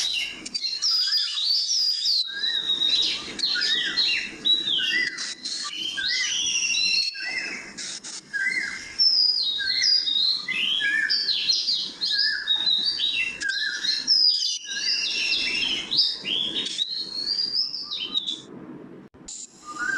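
Many birds chirping and twittering, with quick overlapping rising and falling calls over a soft background hiss, cut off abruptly for a moment several times.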